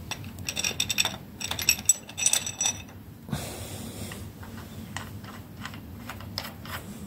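Small steel parts clinking and ringing as the camshaft bearing cap is seated and its nuts and washers are set on the studs by hand on a Ducati 749S cylinder head. A quick run of jingling clicks fills the first three seconds, followed by scattered lighter clicks.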